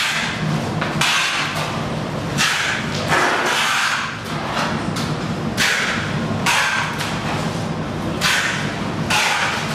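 Factory-floor noise: short bursts of hissing and knocking every second or so over a steady low hum.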